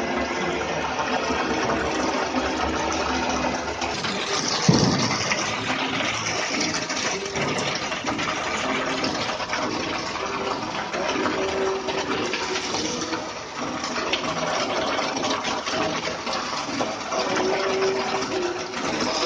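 Liquid churning and pouring in a stainless-steel brewhouse mash tun as its agitator stirs the mash, a steady rush of water with a single knock about five seconds in.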